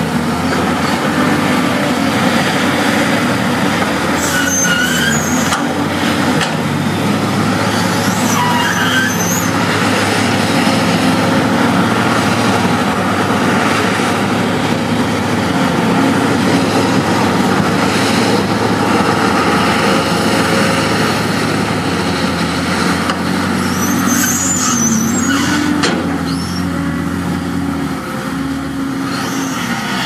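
Heavy diesel earthmoving machinery running steadily under load, with brief high-pitched squeals twice: once in the first third and once near the end. It eases a little in the last few seconds.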